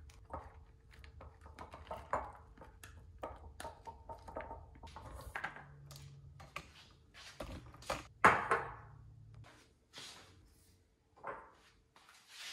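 Fork scraping and tapping against a plastic takeout container and a ceramic bowl as food is moved between them, with scattered clicks and clatter of dishes and one sharp knock about eight seconds in. A small click near the end as the microwave door is opened.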